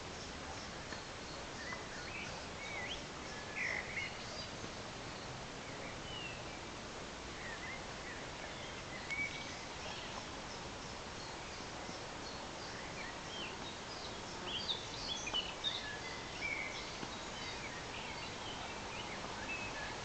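Woodland birdsong: scattered short chirps and whistles over a steady hiss, with the busiest singing in the second half.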